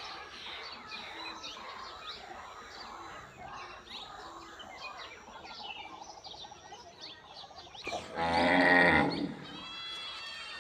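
Birds chirping throughout, with one loud, low animal call lasting about a second, about eight seconds in.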